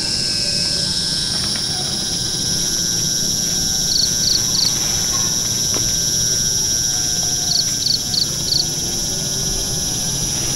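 Forest insects keep up a steady, high-pitched drone, broken by short high chirps: three quick ones about four seconds in and four more around eight seconds.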